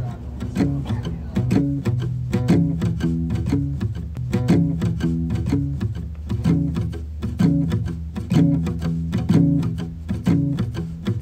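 Background music with plucked low notes in a steady rhythm.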